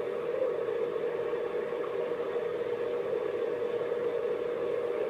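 A steady, unchanging droning hum with a faint hiss over it.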